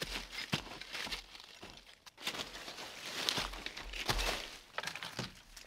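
Footsteps crunching and rustling through dry leaf litter and twigs, with irregular sharp snaps and cracks of small sticks, loudest in the middle.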